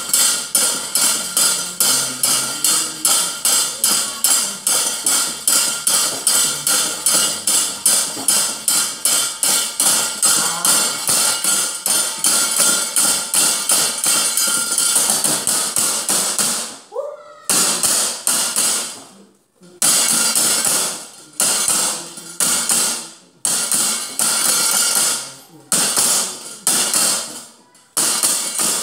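A wayang dalang's keprak, the metal plates on the puppet chest, struck hard in a fast even rhythm of about three strokes a second. After about sixteen seconds the strikes become slower and uneven, with short pauses between groups.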